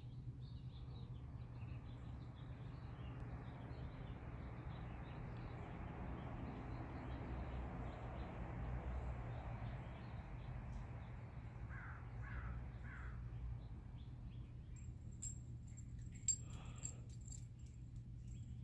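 Faint outdoor ambience with a steady low hum and a soft wash of noise. A bird gives three short calls in quick succession about twelve seconds in, and there is a sharp click about sixteen seconds in.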